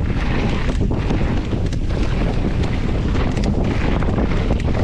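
Wind buffeting the microphone of a camera on a mountain bike riding down a muddy trail, a loud, steady rush, with scattered small knocks and clicks as the bike runs over rough ground.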